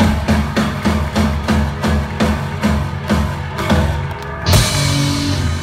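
Live rock band playing: drum kit keeping a steady beat under bass and electric guitar, then a loud cymbal crash about four and a half seconds in with a chord left ringing, the close of the song.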